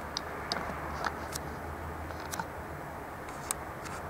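A steady low hum under an even, faint background noise, with a handful of short, sharp clicks scattered through it.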